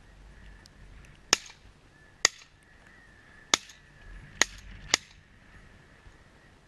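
Shotgun fired five times in quick succession, sharp loud reports spaced under a second and a half apart, the last two closest together.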